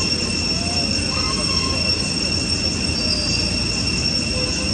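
Steady high-pitched drone of insects in two unbroken tones, with a low rumble underneath.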